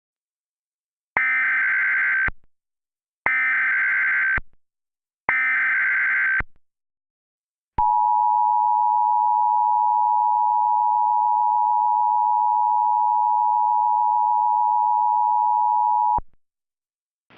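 Emergency Alert System SAME header: three screeching data bursts of about a second each, evenly spaced. They are followed by the EAS two-tone attention signal, a steady dual tone held for about eight seconds, which marks the start of a new alert.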